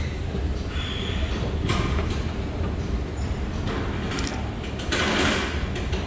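Train on the move: a steady low rumble with louder bursts of hiss about a second and a half in and again from about four to five and a half seconds.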